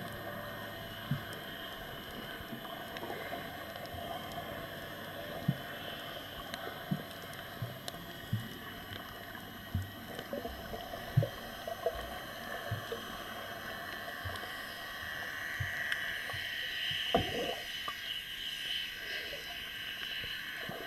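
A boat on the sea: a steady hiss of water and motor noise, with scattered low knocks and thumps, one louder about halfway through.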